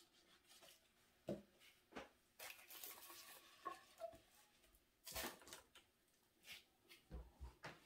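Near silence, broken by faint scattered knocks and soft taps as gloved hands lift and move a freshly poured canvas.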